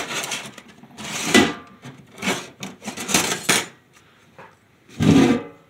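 Sheet-metal parts of an ammo-can tent stove kit being handled and slid on a wooden workbench: a run of scrapes and clunks, a short lull, then a louder knock near the end.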